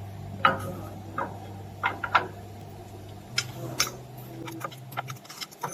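A steady low machine hum that steps up in pitch about three seconds in and stops near the end, with scattered light clicks and knocks of things being handled.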